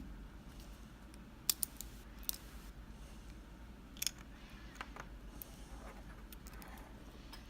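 Small sharp metallic clicks and taps, irregularly spaced and loudest about one and a half and four seconds in, as a Mul-T-Lock Junior padlock's parts are handled with a shim and plug follower during disassembly.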